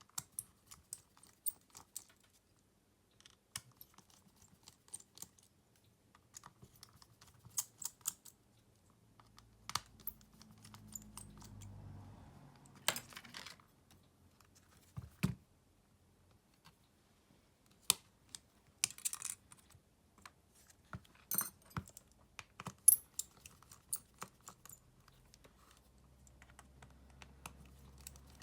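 Small tools and fingers working on a Xiaomi Redmi A2 phone being taken apart: irregular sharp clicks and taps, with a couple of short scrapes.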